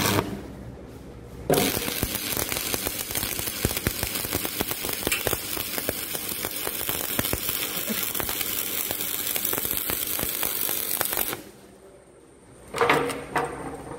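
Shielded metal arc (stick) welding arc from a welding transformer, crackling and sizzling steadily as a flux-coated electrode burns onto a steel workpiece; it strikes abruptly about a second and a half in and cuts off suddenly near eleven seconds. A brief clatter follows near the end.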